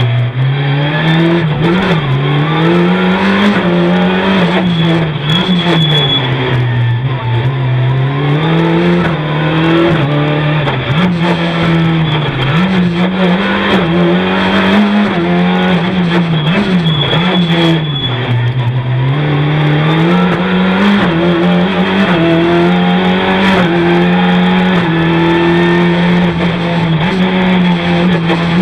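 Renault Clio 3 rally car's 2.0-litre four-cylinder engine, heard from inside the cabin, running hard under full throttle. Its pitch climbs repeatedly and drops sharply at each gear change or lift for a corner, with the deepest drops about a second in, around seven seconds in and near the two-thirds mark.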